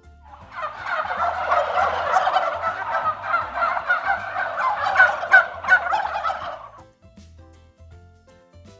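Turkey gobbling: a dense, rapid run of gobbles that lasts about six and a half seconds and stops before the end.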